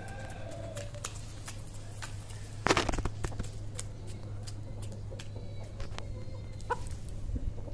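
The tail of a rooster's crow fading out in the first second, then chickens pecking and moving about, with scattered light clicks and one short loud scuffling burst about two and a half seconds in, over a steady low hum.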